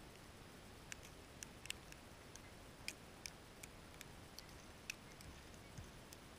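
Near silence broken by faint, sharp ticks at irregular intervals, about fifteen over several seconds: sleet pellets landing.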